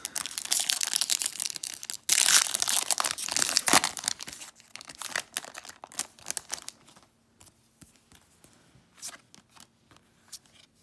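A trading card pack's crimped foil wrapper being torn open and crinkled in the hands, loud and crackling for about four seconds with a short break partway through. Then come quieter, scattered rustles and clicks as the cards are slid out and handled.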